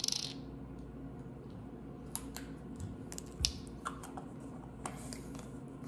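Scattered small plastic clicks and taps from a syrup bottle's flip-top cap being worked open and its seal poked with a thin stick, with a short scrape about three and a half seconds in.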